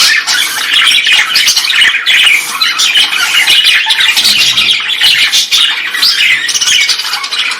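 A colony of many small aviary birds calling together in a dense, continuous chatter of overlapping squawks and chirps.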